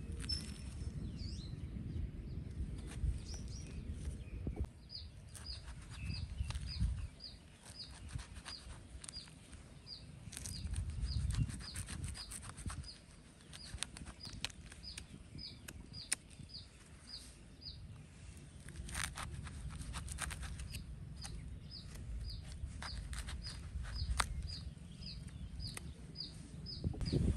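A small knife cutting and scraping into the flesh of a halved jackfruit, giving scattered clicks and scrapes over a low rumble. From about five seconds in, a bird repeats a short, high, falling note about twice a second.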